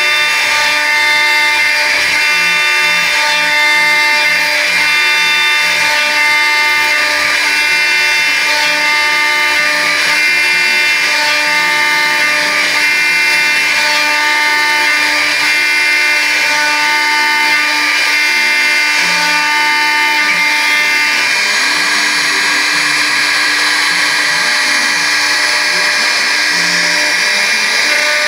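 Homemade CNC router at work on wood: the spindle's steady high whine over cutting noise, with the stepper motors' low tones changing pitch in short steps as the axes move. The cutting noise grows fuller about two-thirds of the way through.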